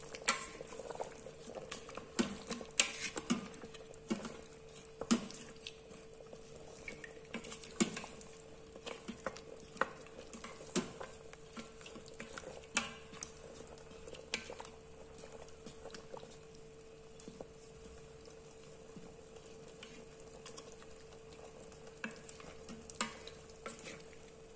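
Wooden spoon stirring a chicken and potato curry in a stainless-steel Instant Pot inner pot, with irregular soft knocks and scrapes against the pot. The knocks come more often in the first half and thin out later. A faint steady hum runs underneath.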